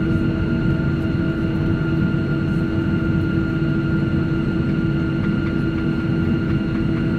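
Boeing 737-700's CFM56-7B jet engines at taxi idle, heard inside the passenger cabin: a steady drone with a few steady humming tones, as the airliner taxis after landing.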